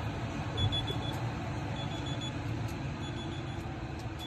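Warning beeper of a new Nissan crossover: short high beeps in quick groups of about four, repeating about once a second, over a low rumble. It is the car's warning as it refuses to lock.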